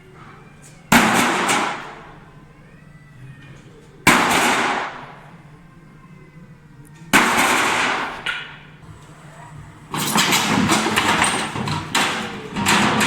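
Hammer blows: three single heavy strikes about three seconds apart, each dying away over about a second, then a quick run of repeated blows near the end.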